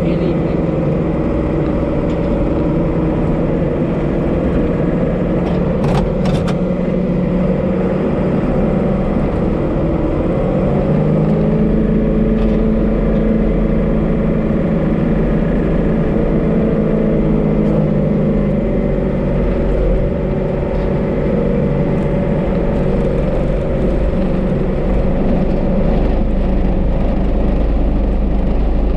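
Tractor engine running steadily. Its pitch steps up about eleven seconds in and drops back a few seconds later, and there are a couple of sharp clicks about six seconds in.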